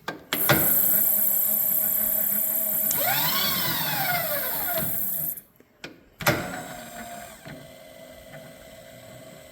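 Servo X-axis power feed on a milling machine driving the table. Its motor runs loudly with a whine that rises and falls in pitch midway, stops suddenly about five seconds in, and after a couple of clicks runs again more quietly.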